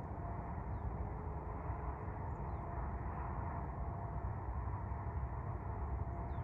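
Rural outdoor ambience: a steady low rumble with a faint hum, and a few faint, short, high chirps of small birds.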